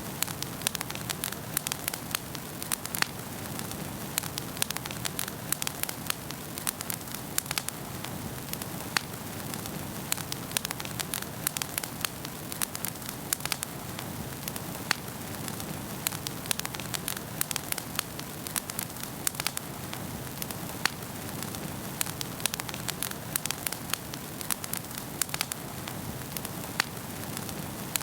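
Wood fire burning in a fireplace, crackling and popping with many sharp irregular snaps over a steady low rustle of the flames.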